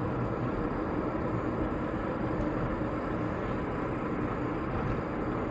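Car driving, with a steady hum of engine and road noise.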